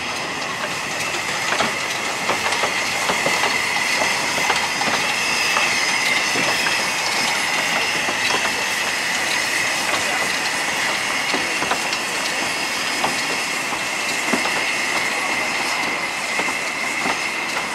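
Narrow-gauge steam train, the Austrian locomotive Zillertal and its coaches, rolling slowly past, its wheels clicking and knocking over rail joints and pointwork over a steady high-pitched squeal.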